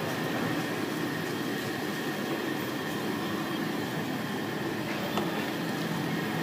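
Steady mechanical rumble and hiss of background room noise, with a faint constant whine throughout and a single light click about five seconds in.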